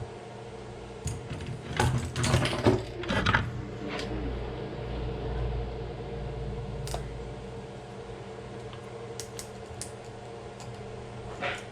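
Small parts and hardware being handled during the fan-kit installation on an RC truck: a burst of clattering and rattling about two seconds in, then scattered single clicks, over a steady low hum.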